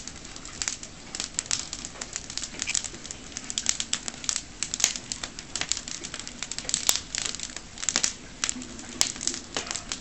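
Firewood crackling and popping in a brick hornilla furnace, with many sharp, irregular pops.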